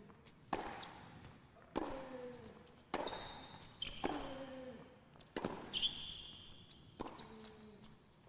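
Tennis ball struck back and forth by racquets in a baseline rally, six sharp hits about a second and a quarter apart. After every second hit comes a short grunt from the same player.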